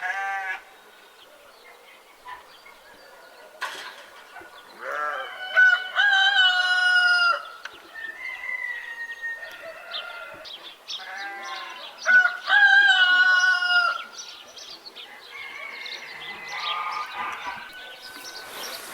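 Rooster crowing twice, each crow ending in a long held note, with chickens clucking in between.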